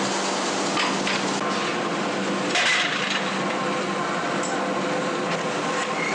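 Metal clanks and knocks as cast aluminium slabs and their steel moulds are handled, over a steady machine hum. The loudest clank comes about two and a half seconds in.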